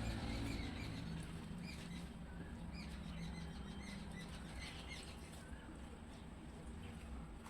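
Small birds chirping in short, scattered calls over a low steady hum.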